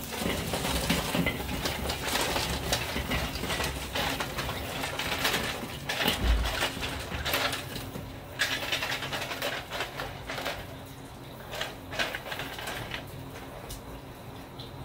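Burning charcoal briquettes tumbling out of a metal chimney starter onto a kettle grill's grate, a dense crackle of small clicks with scattered sharper knocks of coals and metal, thinning out near the end as the hot coals settle.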